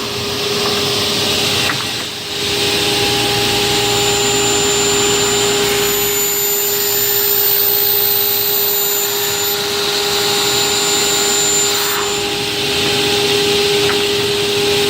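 SL500 automatic aluminium cutting saw running, with a steady motor and blade whine over loud hiss, and a brief dip in level about two seconds in.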